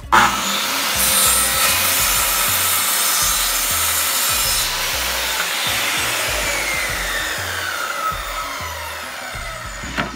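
Circular saw with a freshly sharpened blade cutting through double-sided melamine board. It starts suddenly and runs steadily, with a whine that falls in pitch over the last few seconds. The cut leaves clean edges without burn marks, a sign the blade is sharp again.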